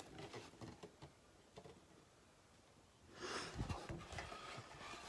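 Faint handling sounds, with a soft bump and a brief rustle a little over three seconds in.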